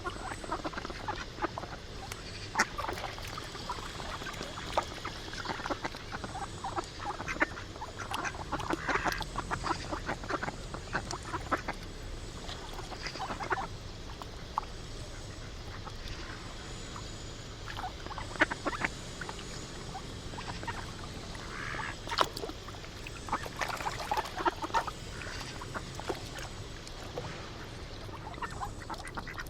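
Ducks quacking on and off in irregular runs, busiest about a third of the way in and again about three-quarters of the way through.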